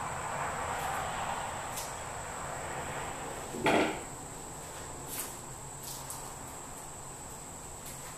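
Hands handling a rolled microfiber towel and its packaging: soft rustling, then one brief loud rasp about three and a half seconds in, followed by a few faint light clicks.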